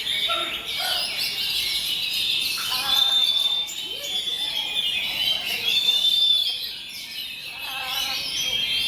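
Several oriental magpie-robins singing at once, a dense overlapping chorus of whistled phrases and chattering chirps, with people's voices faintly underneath.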